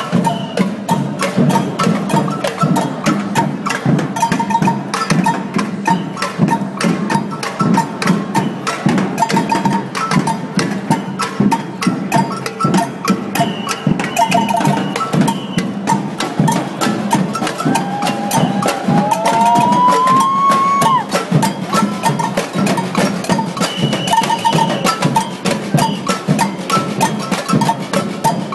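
Samba-style street drumming band playing a fast, steady rhythm on snare drums and bass drums, with high, clacking bell-like strokes from hand percussion over the top.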